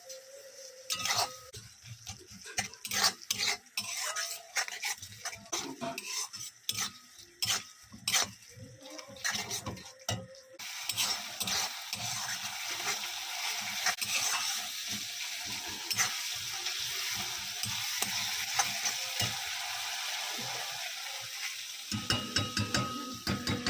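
Spoon or spatula clattering and scraping in a pan for about ten seconds, then a steady sizzle of egg bhurji frying, with occasional knocks. A fast run of clicks comes near the end.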